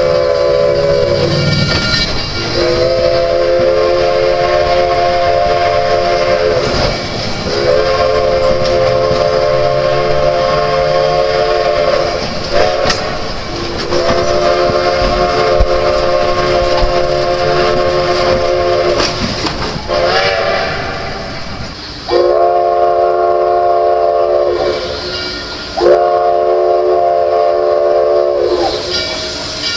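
Steam locomotive chime whistle sounding a chord of several notes at once, blown in a series of long blasts with a couple of short toots between them.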